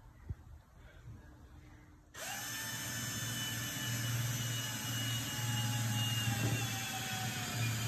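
Cordless drill starting about two seconds in and running steadily, boring holes straight through the seam flange of a hardened mother mold; its whine sags slightly in pitch as the bit cuts.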